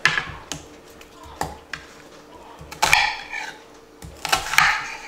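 Chef's knife chopping onions on a plastic cutting board: irregular knocks of the blade through the onion onto the board, with quick flurries of strokes about three and four and a half seconds in, over a faint steady hum.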